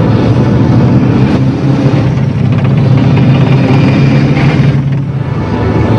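Helicopter running overhead: a loud, steady low drone of engine and rotors, dipping briefly near the end.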